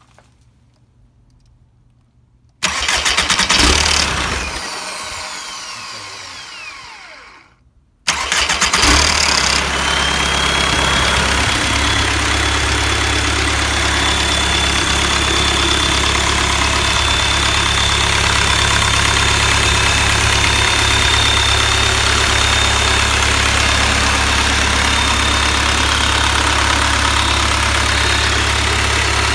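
VW AAZ 1.9-litre four-cylinder turbo-diesel engine, run bare on a test stand: it starts, runs for about five seconds with its speed falling away and dies. Just after, it starts again and settles into a steady diesel idle with a thin high whine over it.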